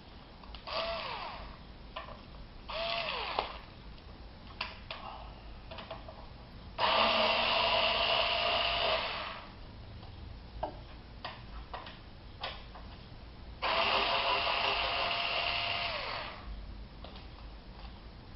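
Cordless electric screwdriver backing screws out of a small metal appliance case: a couple of short spins in the first few seconds, then two longer steady runs of about two and a half seconds each, several seconds apart, with small clicks between.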